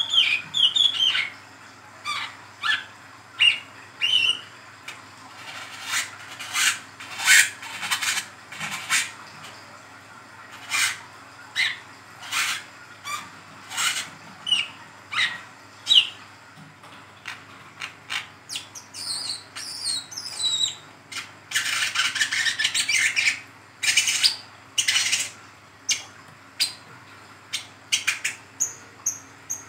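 A wiceh trotol, a speckled sunbird, chattering in short, sharp, high chirps repeated every half second or so, some falling in pitch, with a quicker twittering run past the middle. This is the 'ngeriwik' chatter used as a lure call for brown-throated sunbirds.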